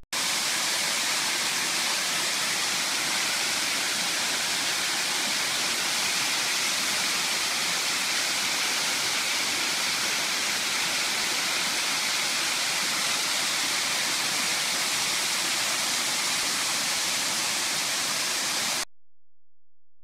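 Yakso Falls fanning down a rock face into a pool: a steady rush of falling water that cuts off suddenly near the end.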